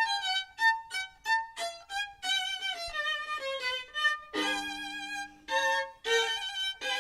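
Violin playing a tune of short, separated notes that step downward in the middle, with a longer held chord about halfway through.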